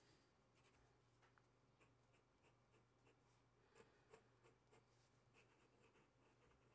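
Very faint scratching of a Diplomat Aero fountain pen's fine steel nib on paper as it draws short strokes and loops, a run of light scratches with a couple slightly louder about four seconds in.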